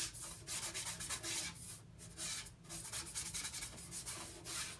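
Paintbrush scrubbing paint onto the painting surface in quick, uneven back-and-forth strokes, a few a second.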